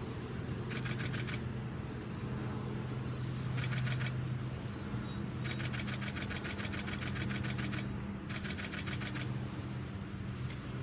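A camera shutter firing in rapid bursts of about ten clicks a second: four bursts, the longest running over two seconds, over a steady low hum.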